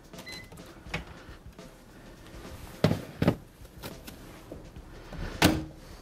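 Microwave oven being loaded: a short electronic beep, then a click and several knocks of the door and dish. Two sharp knocks come near the middle, and the loudest bang near the end sounds like the door being shut.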